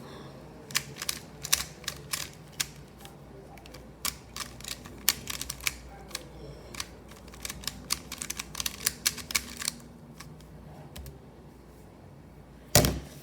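Runs of quick, irregular sharp clicks of hard plastic, thinning out after about ten seconds, then a single loud knock near the end.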